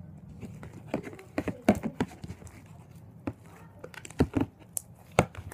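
Slime mixed with foam balls being stretched, folded and squeezed by hand in a plastic tub: irregular sticky pops, crackles and clicks.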